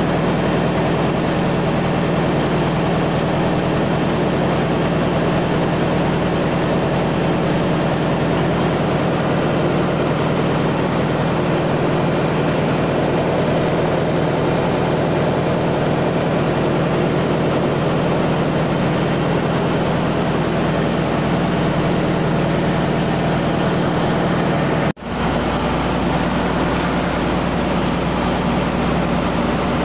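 Steady drone of running machinery in a ship's engine room, with a constant low hum. It cuts out for an instant about 25 seconds in, then resumes unchanged.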